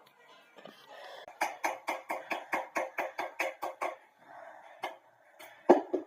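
Rapid knocking, about five or six knocks a second for some two and a half seconds, then a few more scattered knocks with one loud knock near the end.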